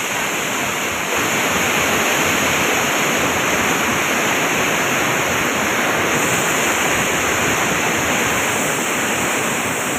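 Muddy floodwater released from a dam rushing and churning past a concrete wall: a steady, unbroken rush of turbulent water.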